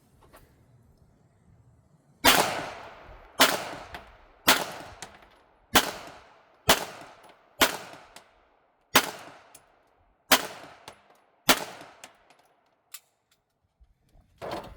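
A string of nine gunshots, a little over one a second, each trailing off quickly.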